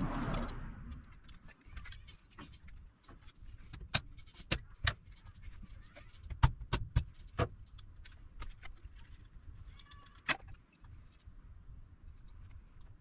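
Irregular light clicks and taps of small metal tools and parts being handled on a workbench, in scattered groups, the loudest about six and a half seconds in.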